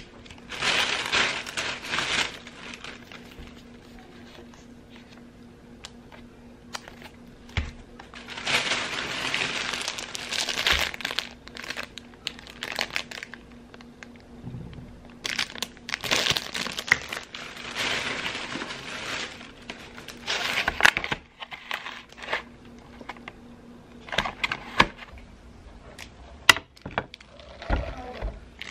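Plastic grocery packaging crinkling as it is handled: a vacuum pack of sausages and a pouch of ketchup. It comes in three long rustling bursts, with a few sharp taps in between.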